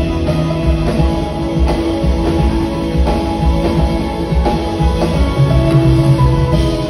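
Live band playing a song: guitar, drum kit and keyboards together.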